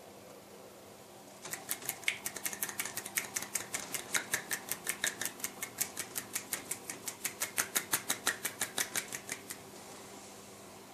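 One-handed clapping: a hand flicked rapidly from the wrist so the fingers slap against the palm, making a fast, even train of sharp claps, about six a second. It starts about a second and a half in and stops shortly before the end.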